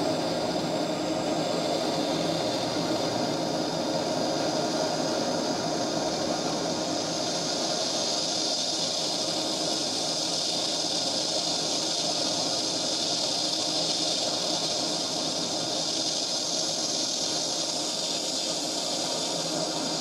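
Hand-held MAPP gas torch burning with a steady hiss, heating a sweated copper shutoff-valve joint to melt the solder.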